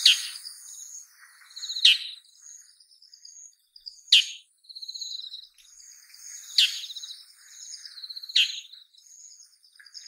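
Female bull-headed shrike calling: five harsh, strong 'jun' calls, spaced about two seconds apart.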